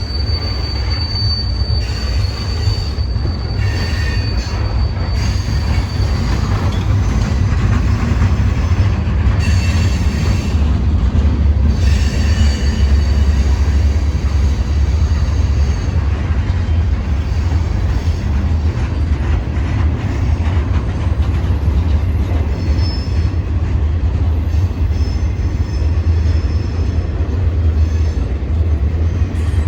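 Train rolling past with a steady heavy rumble of wheels and cars. A thin high wheel squeal sounds over it in the first few seconds.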